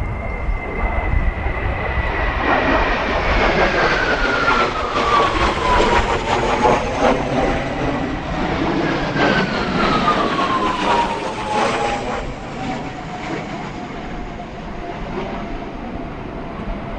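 Kawasaki T-4 jet trainers flying past, a steady jet roar with a high engine whine. The whine falls in pitch twice, about three seconds in and again about nine seconds in, as aircraft go by.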